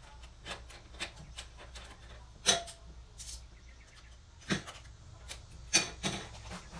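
Scattered clicks and knocks of hand work on parts in a Pontiac Fiero's engine bay, over a low steady hum. The sharpest knock comes about two and a half seconds in, with others near four and a half and six seconds.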